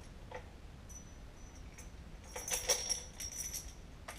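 Small metal parts clinking and jingling against the tractor's transmission housing: a few light clicks, then a cluster of ringing metallic rattles about two and a half seconds in, and one sharp click near the end.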